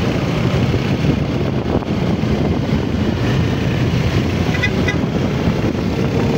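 Steady engine and wind rumble from a motor vehicle moving at riding pace alongside the cyclists.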